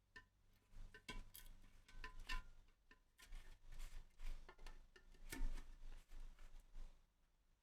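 A screwdriver prying at the lid of a tin of finishing oil: a run of light metallic clicks and taps, some with a brief faint ring.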